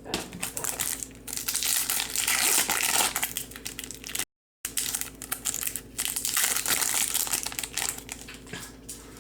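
Foil wrapper of a Topps Chrome trading card pack crinkling and crackling as it is torn open and crumpled by hand, with a brief break in the sound about four seconds in.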